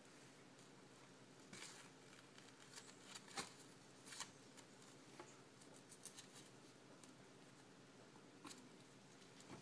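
A young puppy's paws scrabbling across a disposable puppy training pad: faint, scattered crinkling rustles and scratches, several short ones spread through, over a low steady room hum.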